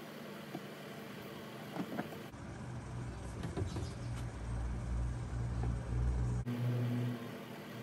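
Light clicks and taps of small metal hand tools being handled, over a low, steady machine rumble that comes in about two seconds in and stops abruptly near the end.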